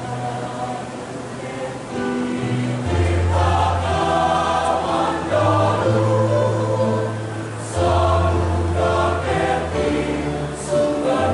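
Choir singing, holding long chords that change every second or two.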